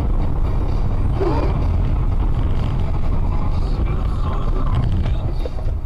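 Steady low rumble of a car's engine and tyres on the road, heard from inside the moving car through a dashcam microphone.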